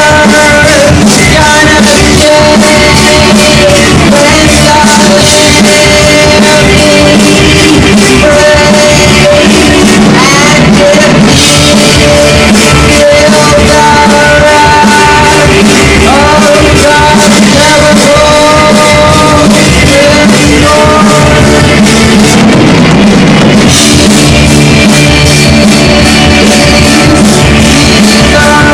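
Live rock band playing: a singer over drums and guitar. The recording runs near full scale throughout, with poor, overloaded sound.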